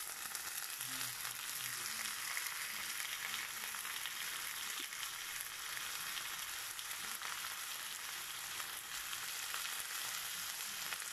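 Steady sizzle of hot olive oil frying onions in a frying pan, with blocks of frozen spinach just added.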